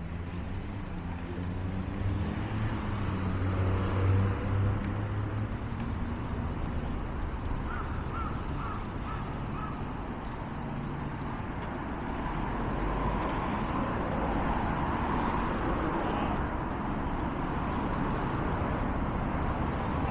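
City street traffic, with vehicle engines running low as cars pass. A crow caws four times in quick succession about eight seconds in.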